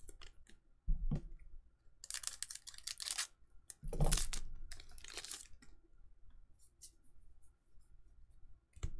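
Trading card booster pack and cards being handled: two spells of crinkling, tearing-like noise, each about a second and a half long, with a couple of soft knocks on the table and small clicks between them.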